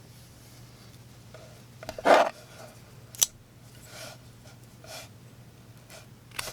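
Gerber Ayako folding knife's blade making slicing cuts, heard as several short rasping strokes. The loudest comes about two seconds in, with a sharp click just after three seconds.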